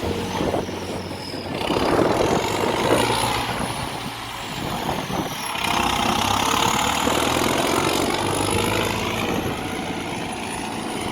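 David Brown 1490 tractor's diesel engine running steadily, its sound swelling and easing a little.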